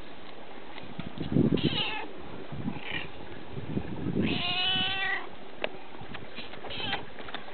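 A domestic cat meows once, a drawn-out meow of about a second, starting about four seconds in. A couple of short, high calls come before it.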